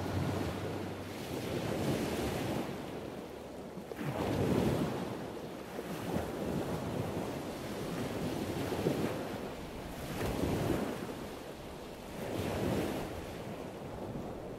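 Ocean surf washing in slow surges every two to four seconds, with wind blowing across the microphone.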